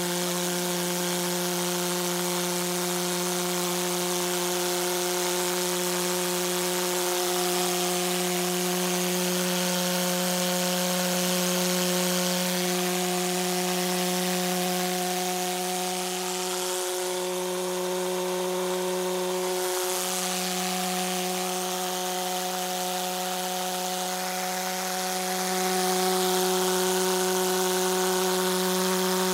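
Pulse jet engine running on thermally cracked propane, giving a steady one-pitch buzzing drone with a few brief dips; it gets a little louder near the end.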